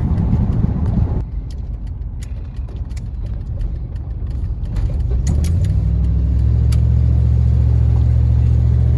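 Car engine and road noise heard from inside the cabin while driving: a low, steady drone that grows louder about five seconds in, with a few faint clicks.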